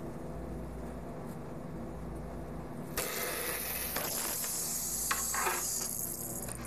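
A steady low hum, then about three seconds in a sudden loud hiss of rushing air or water starts and runs on: the rinse of an EmulsiFlex-C3 homogenizer's sample reservoir.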